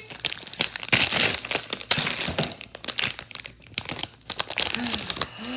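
Packaging crinkling and tearing in quick irregular crackles as a blind-box toy is opened by hand.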